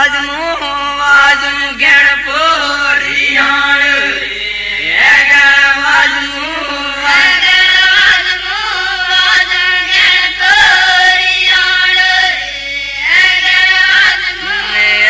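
Group of women singing a folk song together, a chant-like tune sung in phrases with short breaks between them.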